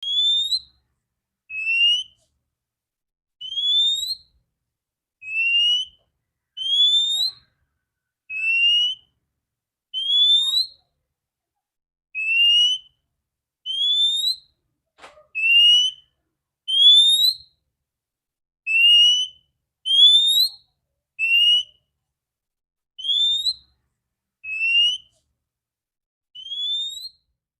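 Female oriental magpie-robin (kacer) giving a steady series of short whistled calls, about one every second and a half, alternating a flatter note with one that slides upward.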